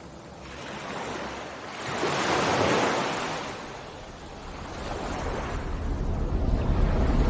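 Surf: waves washing in, the rush of water swelling and fading in slow surges every two to three seconds, with a low rumble building near the end.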